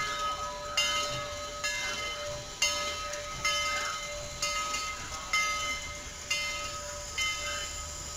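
A railroad bell striking evenly about once a second, each strike ringing on, over the low rumble of a train.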